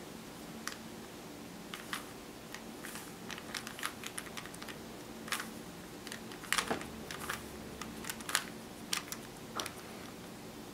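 A 3x3 Rubik's Cube being turned by hand through a sequence of moves: irregular plastic clicks as the layers snap round, some in quick runs and some single.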